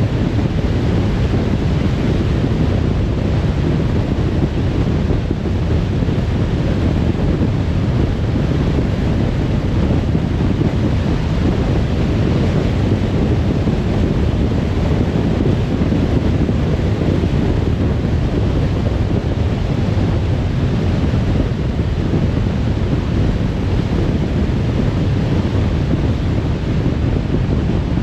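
Steady road noise of a car driving at motorway speed: tyre and wind noise, heaviest in the low end, unchanging throughout.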